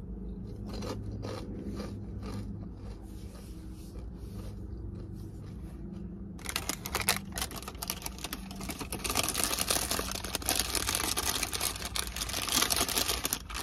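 Quiet chewing over a low steady hum, then from about six and a half seconds in a paper takeout bag crinkling and rustling as it is handled, getting louder near the end.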